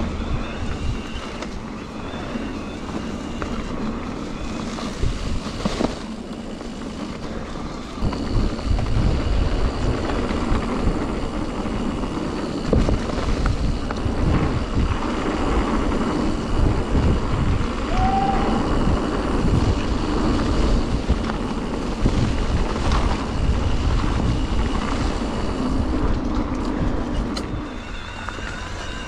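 Wind buffeting the microphone of an action camera on a moving mountain bike, with rolling noise and scattered knocks from the bike over the trail; it grows louder about eight seconds in.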